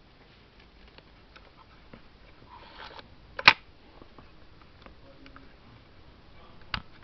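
Shutter of a FED rangefinder camera, set to 1/125 s, being fired on a post-repair check. One sharp shutter click comes about three and a half seconds in and a smaller click near the end, with faint small ticks of handling between.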